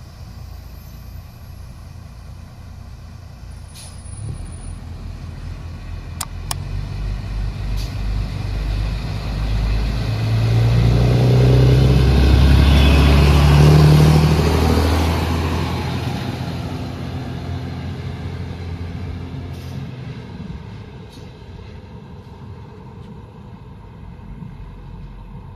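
ALn 668 diesel railcar pulling away and passing close by, its diesel engine running and stepping up in pitch as it accelerates. The sound builds, is loudest about twelve to fourteen seconds in as it goes past, then fades as it draws away.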